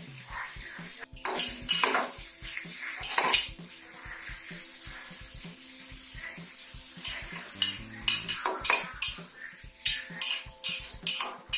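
A metal slotted spatula scrapes and clanks against an aluminium pressure-cooker pot in irregular strokes as chopped onions are stirred while they fry toward golden brown. A faint frying sizzle runs underneath.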